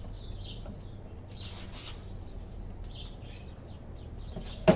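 Birds chirping on and off over a low steady hum, with one sharp knock near the end as the spoiler strip is pressed onto the edge of the hatch.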